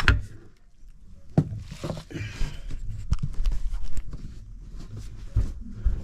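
Handling noises while painting a floor: a sharp click at the start, then scattered knocks and thumps, with a brief scraping hiss about two seconds in.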